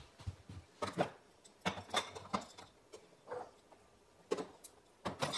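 Glass mason jars set down one after another on a shelf: about half a dozen irregularly spaced clinks and knocks of glass against the shelf and the other jars.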